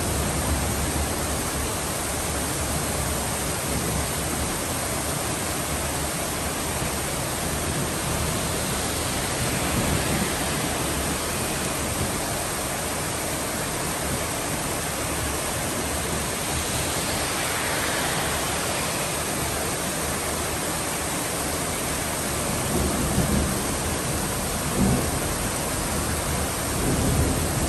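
Heavy rain pouring down on a street and lawn: a dense, steady hiss, with a few brief low rumbles near the end.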